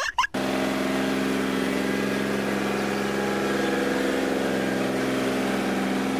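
Engine of a small trackless tourist train running steadily at a constant pitch as it pulls its open passenger cars past.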